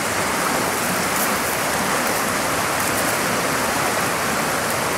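Fast river water running over rocks and rapids: a steady, unbroken rush.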